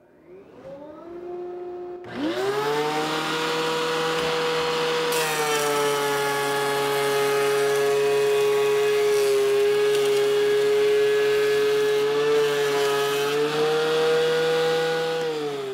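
Benchtop thickness planer starting up with a rising whine, then running loud as a cedar 4x4 is fed through and planed, the motor note sagging slightly under the cut. Near the end the pitch falls as the planer is switched off and winds down.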